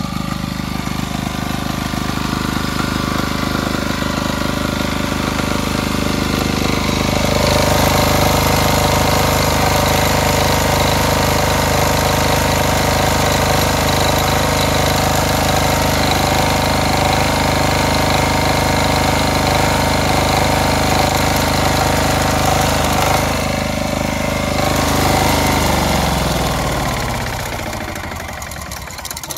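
Small diesel generator engine running unevenly. It picks up speed and gets louder about seven seconds in, then near the end slows with a falling pitch and fades. The owner takes this speed hunting to come from the broken stand of its fuel pump: the pump shakes with the vibration, so the diesel is not delivered evenly.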